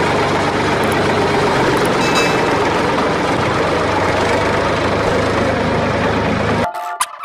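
Steady engine sound of a tractor, a low hum under a rough running noise, cutting off abruptly near the end; a sound effect laid over a toy tractor with no motor.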